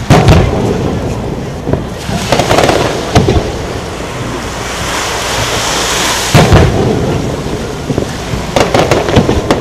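Aerial firework shells bursting with deep booms: a loud one at the start, more about two and three seconds in and at six and a half seconds, and a quick run of bangs near the end. A hiss swells in between.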